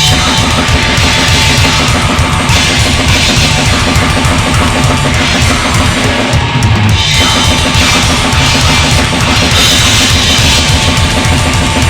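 Heavy metal music with a drum kit played over it: fast, even bass-drum strokes under a steady wash of cymbals.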